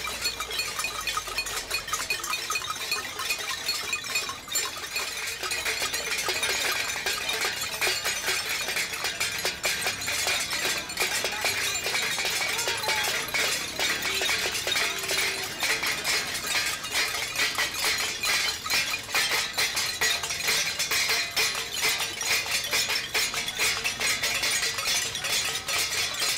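Many steel plates being beaten with spoons: a dense, continuous clatter of metal clinks, growing busier about a third of the way through.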